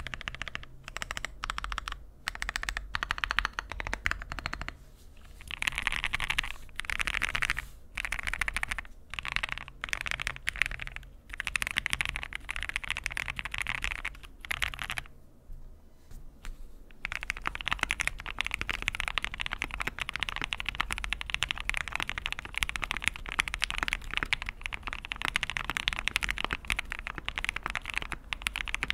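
Typing on a mechanical keyboard: quick runs of keystrokes clacking, broken by short pauses, then a long unbroken stretch of fast typing in the second half.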